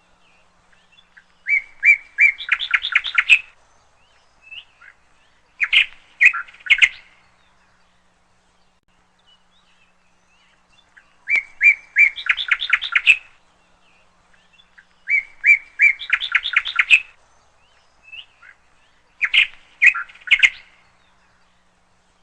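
A bird in a tree calling in bouts of rapid, repeated chirps, five bouts a few seconds apart.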